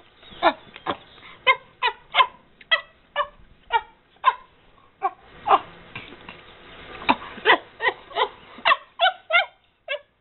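Chimpanzee giving short, high squeaks about twice a second, many falling in pitch, with a brief lull partway through. They are happy food squeaks made as she bites treats off a Cheerio necklace.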